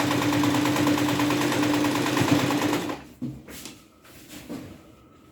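Usha Janome electric sewing machine stitching at a steady fast rate with an even hum, stopping abruptly about three seconds in, followed by a few faint clicks.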